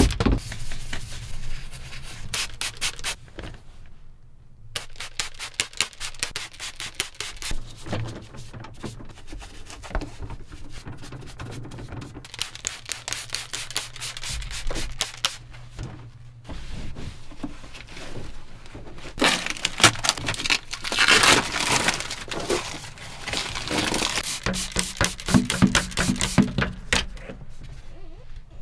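Detailing brush scrubbing the plastic levers, console and gear-shift knob of a tractor cab in long runs of quick strokes, with squirts from a hand trigger sprayer of cleaner.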